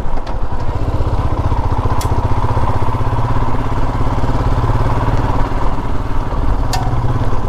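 Royal Enfield Himalayan's single-cylinder engine running steadily while the motorcycle is ridden, with a fast, even thump of firing pulses. Two sharp clicks come through, about two seconds in and near the end.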